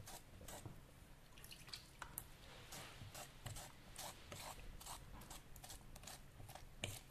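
A fork working soft wet porcelain clay, softening it up: a quiet, irregular run of short wet clicks as the tines press and drag through the clay, with one sharper click near the end.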